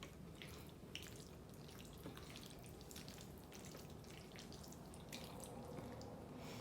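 Faint, wet mouth sounds of someone chewing creamy fettuccine alfredo: many small, irregular smacking clicks.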